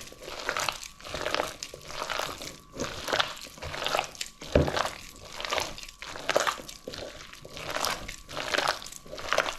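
Bhaji batter of grated onion and potato, gram flour and egg being mixed and squeezed by hand in a bowl, in irregular strokes about one or two a second.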